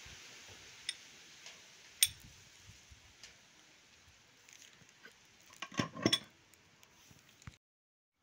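Steel gearbox gears and shaft clinking and knocking against each other and a steel plate as they are handled and set down. There is a sharp clink about two seconds in and a cluster of knocks around six seconds in, and then the sound cuts off suddenly near the end.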